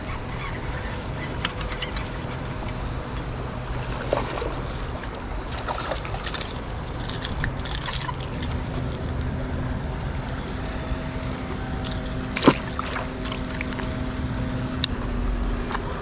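Shallow river running over rocks as a steady rush, under a low hum of motor traffic, with scattered small clicks and one sharp click about three-quarters of the way through.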